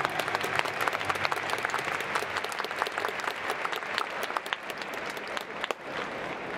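Stadium crowd applauding, a dense patter of clapping that thins out and stops about six seconds in.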